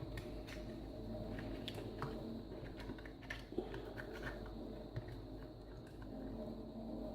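Small plastic parts of an RC car being handled and pushed into place: scattered light clicks and taps over a faint steady hum.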